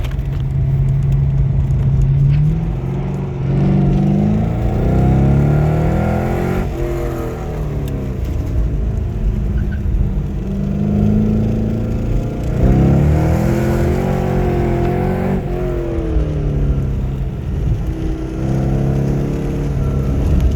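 Corvette Z06's V8 engine accelerating hard and climbing in pitch, dropping back at each gear change, then easing off, several times over.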